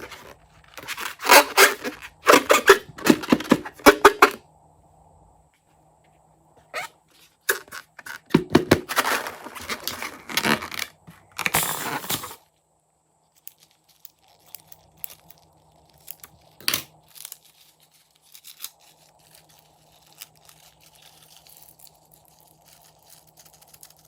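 Crackling, tearing noises of balloons and slime being handled during slime-making. They come in two dense spells of about four seconds each, followed by scattered faint clicks.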